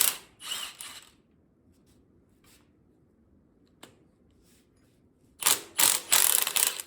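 Hand ratchet wrench clicking in quick runs while loosening bolts on a big-block Chevy 454 engine: once at the start and again about five and a half seconds in, with a single click in between.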